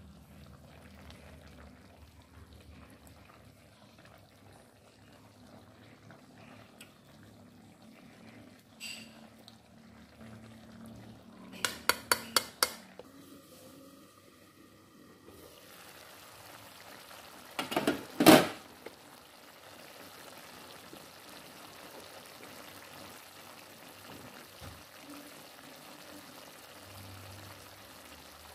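Metal cookware clinking and clanking: a quick run of about five clinks around twelve seconds in, then a louder clatter of clanks around eighteen seconds in.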